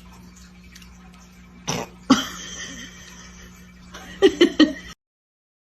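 A person coughing: a cough about two seconds in, then three quick coughs near the end, over a faint steady hum. The sound cuts off suddenly about five seconds in.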